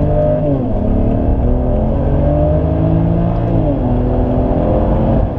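BMW 335i turbocharged 3.0-litre straight-six accelerating hard, heard from inside the cabin through its AC Schnitzer rear silencer on stock catalytic converters. Revs climb, drop twice as it shifts up a gear, about half a second in and near four seconds in, then climb again.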